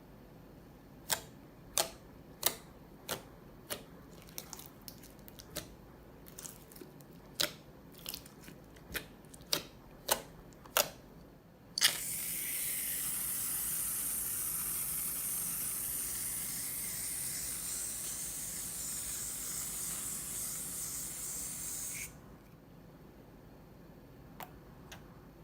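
A run of sharp, irregular clicks, then a loud, steady, spray-like hiss that starts suddenly, lasts about ten seconds and cuts off abruptly.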